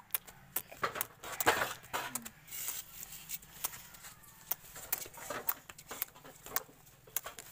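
Scattered clicks and rustling from close handling, with a few short vocal sounds from small children.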